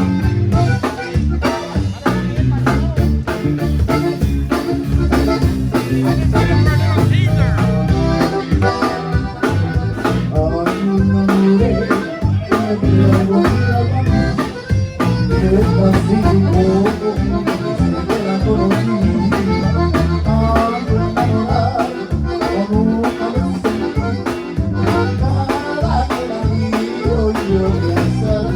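Conjunto band playing live, an accordion leading over a steady beat.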